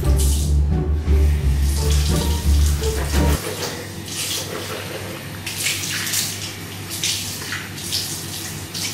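A bathroom tap running into the sink, with water splashing, while she bends over the basin. Background music with a heavy bass plays under it and stops about a third of the way through.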